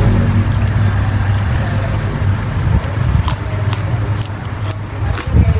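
Close-miked chewing of raw leaves and vegetables, a heavy low mouth rumble throughout, with crisp crunching clicks coming in about halfway through.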